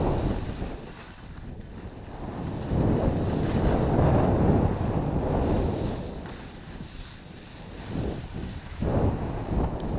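Wind rushing over a body-worn action camera's microphone as a skier runs downhill, swelling and fading in waves, mixed with the hiss of skis sliding over packed snow.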